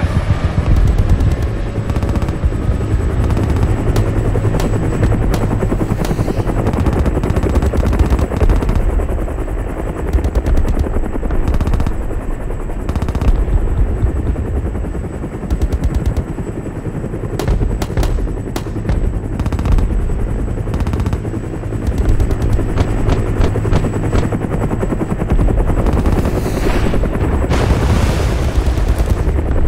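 Battlefield sound effect: rapid machine-gun fire and scattered gunshots over a continuous deep rumble, with two brief louder rushes of noise near the end.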